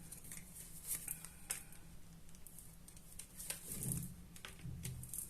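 Faint handling of tarot cards: a few soft, scattered clicks and taps as cards are drawn and laid down.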